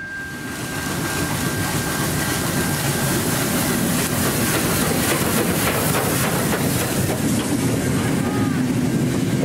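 Train running along the track: a steady rumble and hiss that swells up over the first second, with clicks from the wheels over the rails around the middle.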